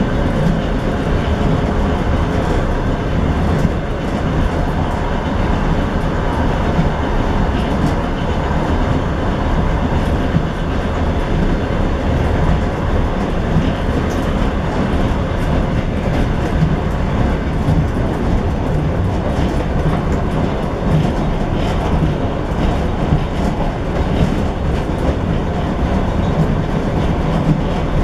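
A train running along the rails, heard from its last car: a steady rumble of wheels on track with faint scattered clicks.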